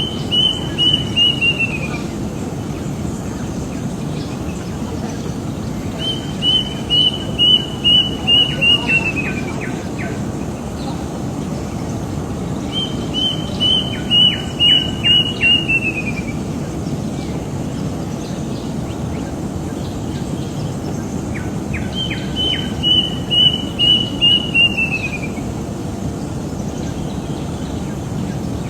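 A bird singing a short phrase of about seven quick, evenly repeated high notes that slide down in pitch at the end, given four times several seconds apart, over a steady low background rumble.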